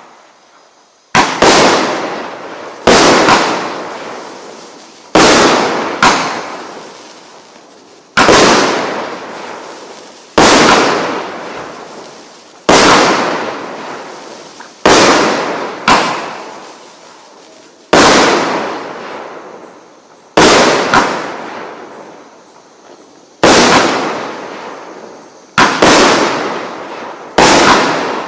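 A 1.2-inch, 49-shot consumer firework cake firing shot after shot. There is a sharp bang about every two to three seconds, some coming in quick pairs, and each one trails off in a long fading tail.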